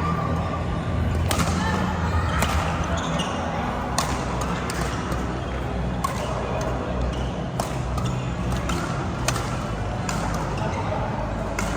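Badminton rackets striking the shuttlecock in a rally, sharp smacks about every one to two seconds, over the steady background of a sports hall with voices and a low hum.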